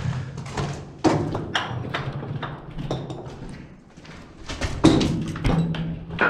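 A string of irregular knocks and scuffs, with a louder knock about a second in and again near five seconds.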